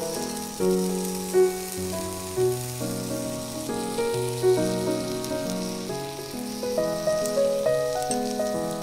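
Gentle instrumental background music of sustained melodic notes and chords, with a steady high hiss laid under it from the start.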